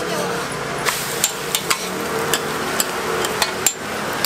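Metal spatula and tongs tapping and scraping on a flat-top steel griddle as an egg crepe is turned and folded: about ten sharp, irregular clicks over the steady hiss of frying.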